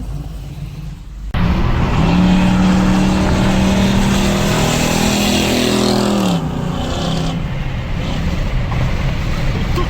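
383 small-block Chevy V8 in a 1987 Monte Carlo SS under hard acceleration. About a second in it comes in loud and holds a steady high note for about four seconds, then the pitch falls about six seconds in and it runs on loud.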